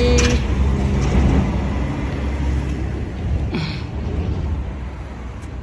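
A motor vehicle's engine rumbling close by, gradually fading away.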